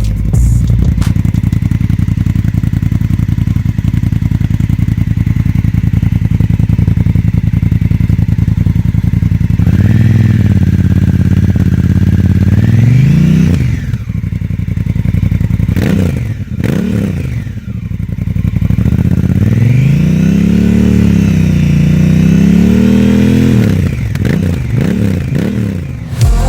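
Honda Africa Twin's parallel-twin engine running through an aftermarket exhaust, idling steadily, then revved about ten seconds in. A few short throttle blips follow, then a longer rev that rises and falls twice, and several quick blips near the end.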